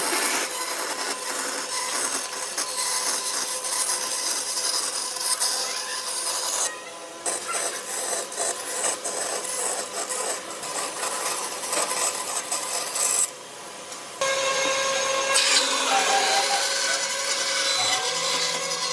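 A tool scraping across wood in a continuous rasping noise, broken by two short pauses.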